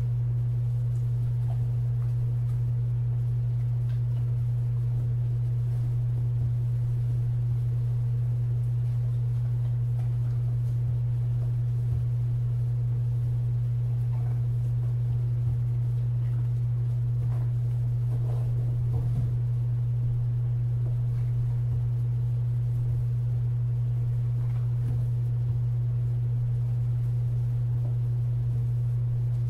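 A steady low hum: one unchanging tone at a constant level, with faint small knocks now and then.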